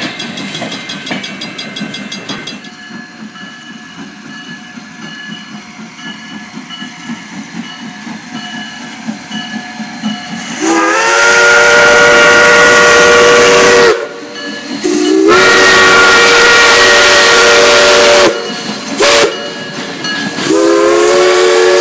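A steam train rolling by, then the steam whistle of steam locomotive V.C. Ry. Co. No. 2 blowing two long blasts, one short and one long, the grade-crossing signal. Each blast is a chord of several tones that slides up in pitch as it opens, and the blasts are far louder than the train noise before them.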